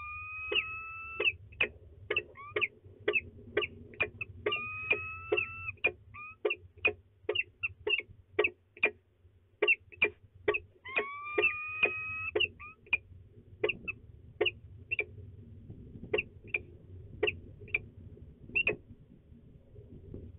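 Peregrine falcons calling: a rapid series of short, sharp chips, about two a second, interrupted three times by a drawn-out, slightly rising wailing call. The chips thin out in the second half.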